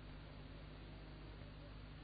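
Near silence between two verses of a Quran recitation: only a faint, even hiss with a low hum from the recording.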